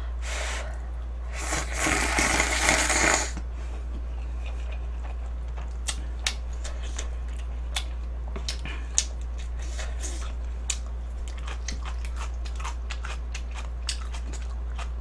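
Cup noodles slurped off chopsticks in a noisy draw of about two seconds, followed by close-miked chewing: many small wet clicks and crunches. A low steady hum runs underneath.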